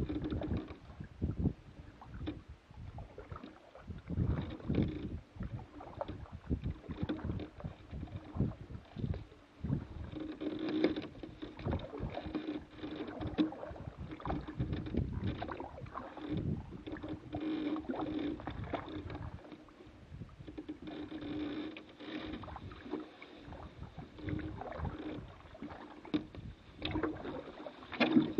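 Paddling a canoe: repeated paddle strokes splashing in the water, with occasional knocks, in an irregular rhythm every second or two.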